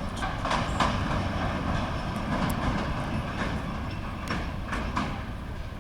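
A vehicle rumbling across a bridge, with a few irregular knocks and clanks from the deck.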